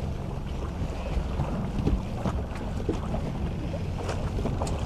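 Wind buffeting the microphone over the steady low rumble of a boat on open water, with a few short clicks and knocks.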